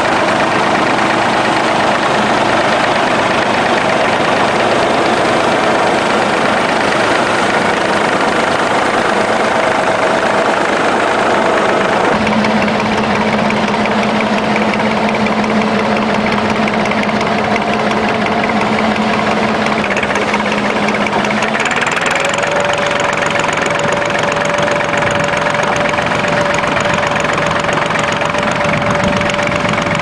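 David Brown 770 tractor's three-cylinder diesel engine running steadily under load while pulling a two-furrow plough through the ground. Its steady note shifts twice: a lower tone comes in about twelve seconds in, and a higher steady tone takes over from about twenty-two seconds in.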